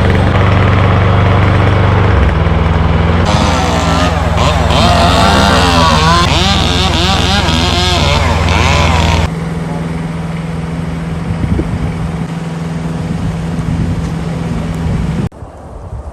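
Engines running steadily. A wavering higher sound joins from about three seconds in and cuts off abruptly near nine seconds. The level drops sharply again near fifteen seconds.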